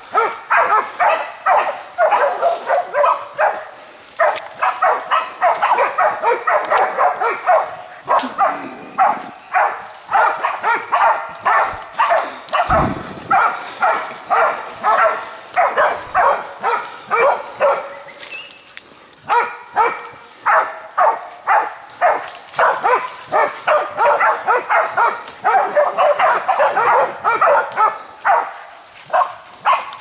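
Bailing hunting dogs barking steadily at about two to three barks a second, a sign that they are holding a wild boar at bay. The barking breaks off briefly about two-thirds through, then resumes.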